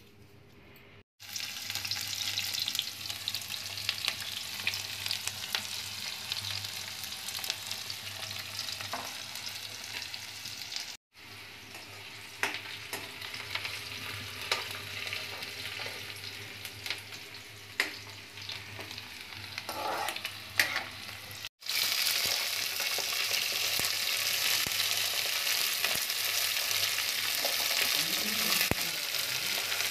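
Chopped flat beans and potatoes frying in hot oil in a kadhai: a steady sizzle that starts about a second in, with scattered clicks of a spoon stirring. The sizzle cuts out abruptly twice and is louder over the last third.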